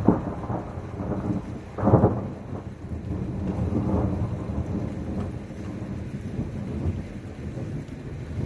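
Thunder: a sudden loud clap, a second loud crack about two seconds later, then a long low rumble that slowly fades.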